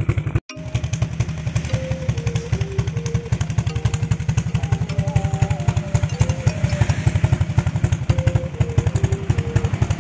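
Motorcycle engine fitted with an aftermarket Daeng Cypher power pipe, running steadily with rapid, even exhaust pulses. The sound drops out briefly about half a second in. Faint music plays underneath.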